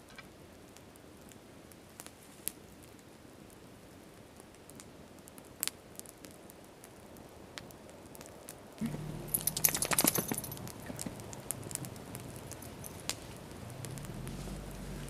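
Wood campfire crackling with scattered sharp pops. A little past halfway a low rumble comes in along with a short burst of louder, denser crackling.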